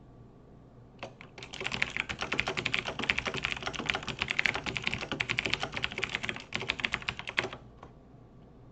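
Computer keyboard typing: a fast, steady run of keystrokes starting about a second in and stopping shortly before the end, with one last key press after it.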